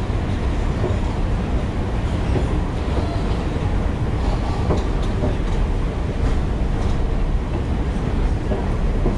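Steady low rumble of an underground metro station, heard while riding a long escalator down, with a few faint clicks.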